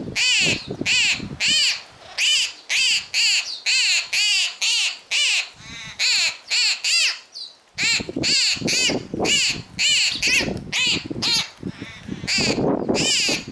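A young bird's harsh begging calls, repeated rapidly at about three a second, with a brief pause in the middle.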